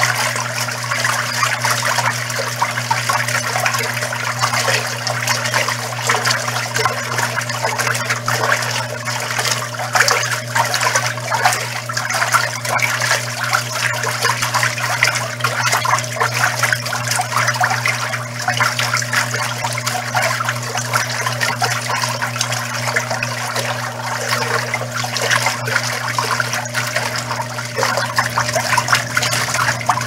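Arno Lavete Intense Delicate semiautomatic top-load washer in its final agitation, churning a duvet and blanket in water: a steady rush of swirling water over the constant low hum of the machine's motor.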